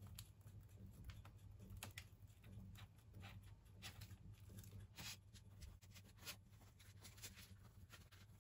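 Near silence: room tone with a faint low hum and scattered soft clicks.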